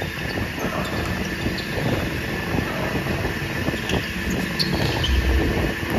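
Steady rumbling hiss of a large gym during an indoor volleyball rally, with a few short sharp hits and squeaks from the ball and players' shoes on the court, and a low thud about five seconds in.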